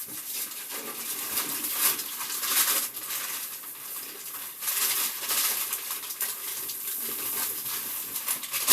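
Dry sand-concrete mix being poured out of its bag into a container: an uneven rustling hiss of pouring sand and the bag, swelling and easing.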